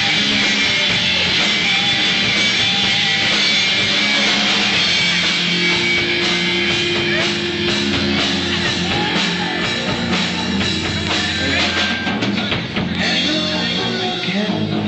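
Live rock band playing loudly: distorted electric guitars over a drum kit, with some singing.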